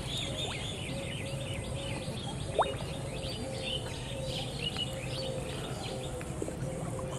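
Several birds chirping and twittering over a steady low hum, with a low note pulsing about twice a second, and a single sharp click about two and a half seconds in.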